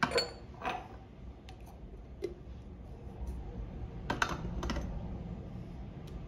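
Glass spice shakers with metal lids handled and set into a wooden spice rack: light clicks and clinks of glass and metal knocking against wood and against each other, irregularly spaced. The loudest cluster comes about four seconds in.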